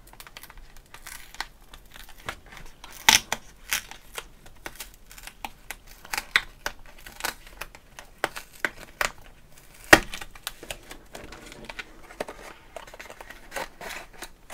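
Cardboard-and-plastic packaging of a clear stamp and die set being opened by hand: steady crinkling and rustling with scattered snaps, the sharpest about three seconds in and again about ten seconds in.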